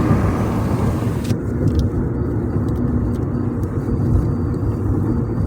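Low, steady vehicle rumble. About a second in, the hiss above it cuts off abruptly, leaving only the rumble.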